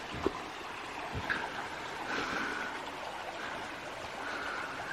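Creek water running steadily over rocks. A couple of faint knocks sound in the first second, and a few faint, short, high steady tones sit on top of the water.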